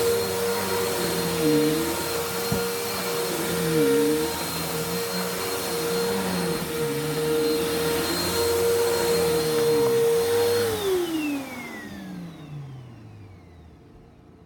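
Bissell vacuum cleaner running, its lower hum dipping and recovering every second or so, then switched off about ten seconds in, the motor whine falling in pitch as it spins down to a stop.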